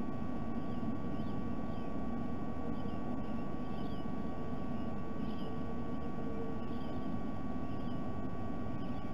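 Steady low rumble with a constant thin electrical tone from the nest-camera microphone's background, with faint short high bird chirps about once a second.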